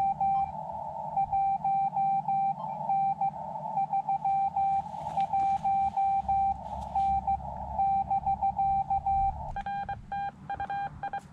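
Morse code from a Xiegu X5105 transceiver: a steady mid-pitched tone keyed in dots and dashes, with stretches of hissing receiver noise in the gaps between runs. Near the end, a higher tone briefly sounds along with it.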